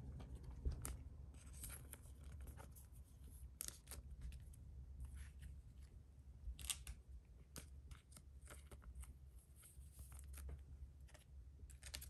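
Trading cards and a foil booster pack being handled, with faint scattered clicks and rustles.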